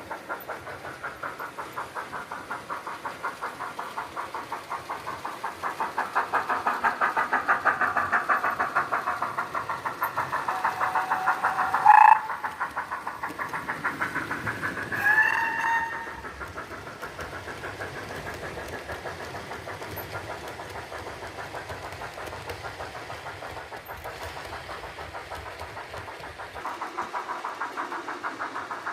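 Model steam locomotive's DCC sound decoder playing a fast, steady chuffing exhaust beat. About halfway through come two short whistle toots, roughly three seconds apart.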